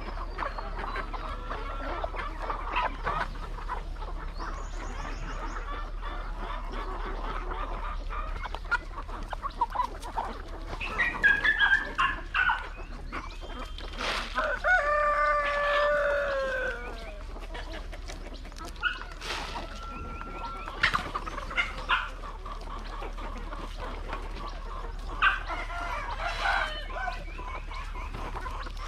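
Chickens clucking, with a rooster crowing once about halfway through in one long call that falls at the end.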